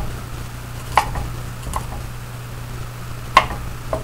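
Kitchen knife slicing garlic cloves into slivers on a wooden cutting board: a few separate, unevenly spaced knocks of the blade on the board.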